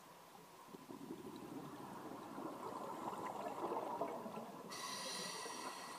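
Scuba exhaust bubbles gurgling, heard underwater, building from about a second in. A steady high-pitched tone comes in suddenly near the end.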